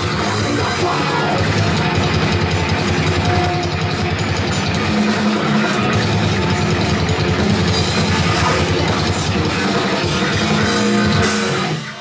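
Live rock band playing loud, with a pounding drum kit and distorted electric guitars; the music cuts off near the end as the song finishes.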